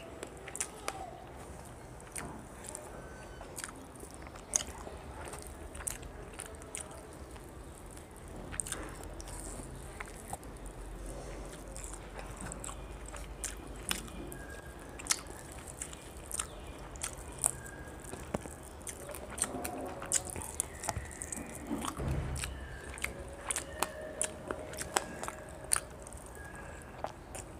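Close-miked eating sounds: a person chewing rice and fish curry eaten by hand, with many short, sharp mouth clicks and lip smacks.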